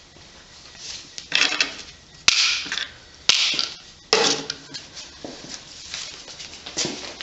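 Metal engine parts and hand tools clanking and rattling during disassembly, with three sharp knocks about a second apart, each trailed by a short rattle.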